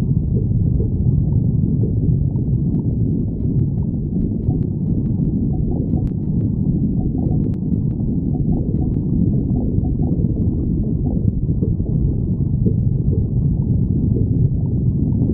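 Human stomach growling, a continuous low gurgling rumble without pauses.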